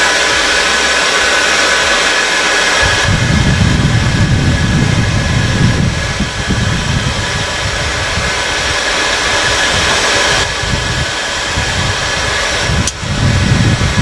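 A forge's air blower running steadily, a hiss with a faint high whine. About three seconds in, a low, uneven rumble joins it.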